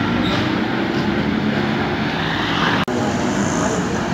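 Street traffic noise: a steady mix of engines and road noise. It drops out briefly about three seconds in, then carries on with a slightly different tone.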